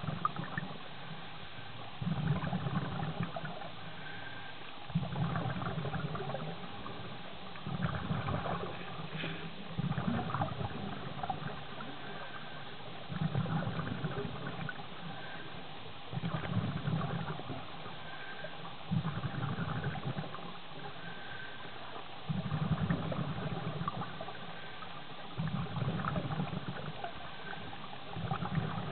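A scuba diver's regulator breathing, heard underwater: a low gurgling rush of exhaled bubbles about every three seconds, with quieter gaps between, over a steady fine crackle.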